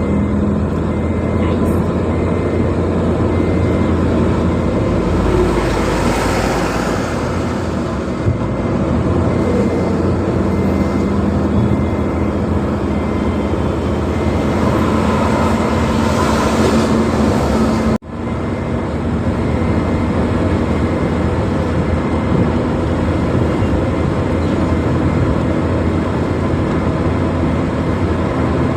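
A car driving at speed on a highway, with a steady engine hum and tyre and road noise. There are two swelling rushes of noise, about six and sixteen seconds in, and a momentary dropout at about eighteen seconds.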